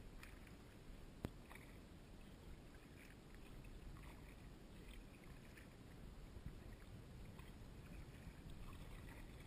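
Faint kayak paddle strokes in calm water: quiet dips and drips off the paddle blades over a low steady rumble, with one sharp click about a second in.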